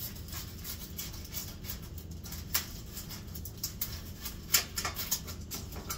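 A knife cutting an onion on a plate: a run of irregular light clicks and taps, with a few sharper knocks in the second half.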